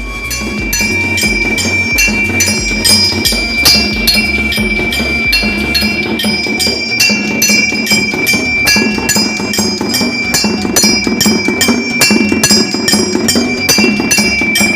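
Automatic temple bell and nagada drum playing machine running: a bell struck several times a second and ringing on continuously, with drum beats underneath.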